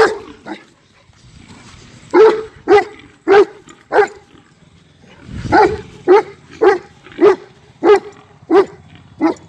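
A dog barking in repeated sharp barks: four, a brief pause, then a steady run of about seven more, roughly one every half second.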